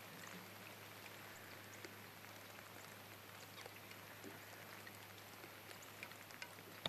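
Near silence: faint outdoor ambience with a steady low hum and a few scattered faint ticks.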